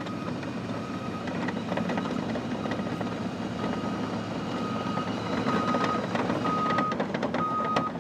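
Truck's reversing alarm beeping about once a second, growing louder, over a steady engine rumble, with a few sharp metal knocks in the second half.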